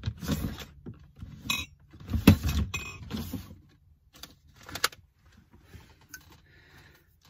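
Rummaging through stored gear: a run of knocks, clatters and rustling as things are shifted about, loudest about two seconds in and dying away after about five seconds.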